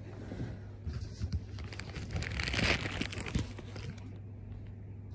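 Cloth tote bag rustling and rubbing against the phone's microphone as the phone is handled, with a few knocks about a second in and the rustling loudest around the middle. A steady low hum runs underneath.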